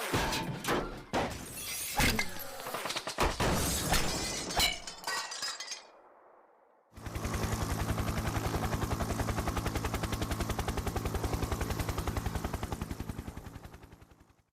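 Surround-sound demo effects: a burst of crashing, shattering impacts for about six seconds. After a brief gap comes a fast, even rapid-fire rattle that fades away near the end.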